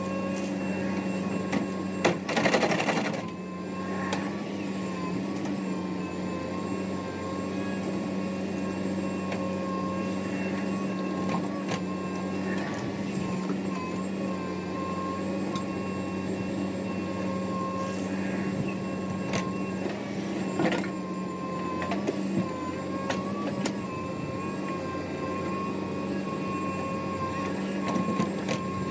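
Diesel heavy machinery running steadily, a constant hum with a slightly wavering whine above it. A short noisy burst comes about two to three seconds in, and a few sharp clanks follow later.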